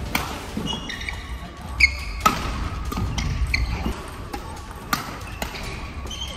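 Badminton singles rally in a gym: sharp racket hits on the shuttlecock, shoes squeaking and footsteps on the wooden court, echoing in the hall.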